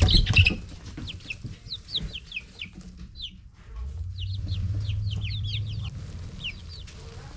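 Young Blue Star chicks peeping over and over, many short falling peeps. A loud rustling flutter at the very start, and a low rumble for about two seconds in the middle.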